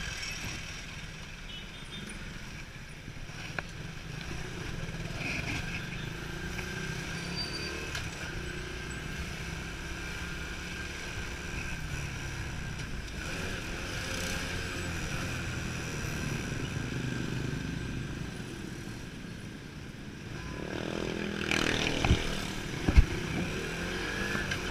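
Motorcycle engine running steadily at low speed in slow traffic, with wind and road noise. Near the end there are two sharp knocks about a second apart.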